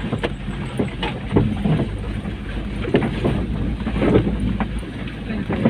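Vehicle engine running, heard from inside the cab, with scattered knocks and rattles as it bumps through deep muddy ruts.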